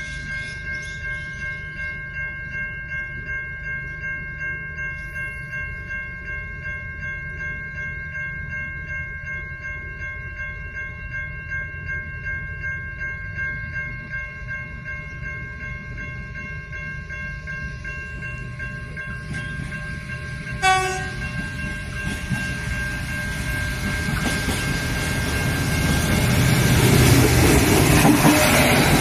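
Diesel railcar approaching and then passing close by, with a short horn blast about two-thirds of the way through, followed by the engine and wheels on the rails rising to loud as it draws level. A steady pulsing warning tone sounds under it until the train passes, and wind rumbles on the microphone.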